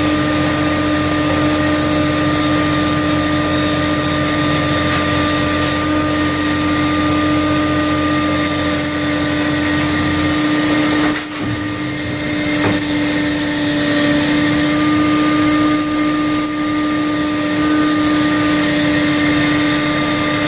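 Trawler's engine and hydraulic net drum running steadily while the bridles and net are wound in: a constant machine drone with a steady hum. The deepest part of the hum cuts off about halfway through.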